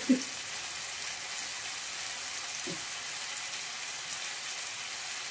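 Diced chicken breast and onions sizzling in a frying pan, a steady soft hiss.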